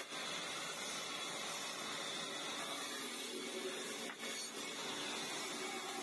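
Old bandsaw running and cutting lengthwise through a dry log slab: a steady hiss of the blade in the wood with a faint hum from the machine.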